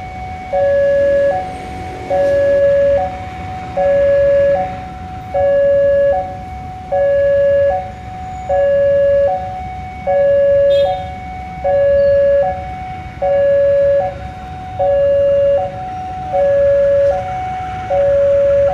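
Railway level-crossing warning alarm sounding, alternating a higher note and a lower, louder note in a steady cycle about every second and a half, over a low rumble. It is the signal that a train is approaching the crossing.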